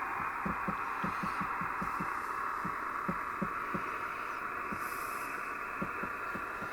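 Radio receiver hiss, cut off sharply above the voice band, with irregular low thuds about two to three a second: interference, a spurious signal, from an ultrasonic humidifier.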